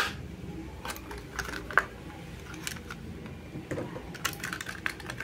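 Stiff plastic blister of a carded die-cast toy car being cut open with a utility knife and pulled off the card: irregular sharp clicks and crackles, with a sharp snap at the start and a quicker run of crackling near the end.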